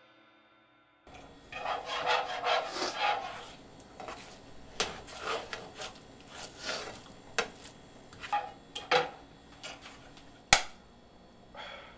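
Spatula scraping and stirring scrambled eggs in a frying pan in short, irregular strokes, starting after about a second of silence, with one sharp knock near the end.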